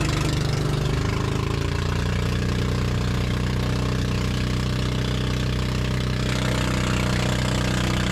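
Outrigger pump boat's engine running steadily with the boat under way.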